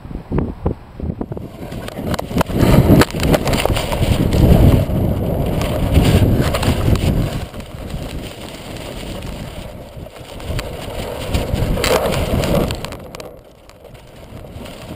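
Gusty wind buffeting the microphone of a GoPro taped to a flying box kite. The roar rises and falls in surges, loudest through the first half, surges again once more, then eases off near the end.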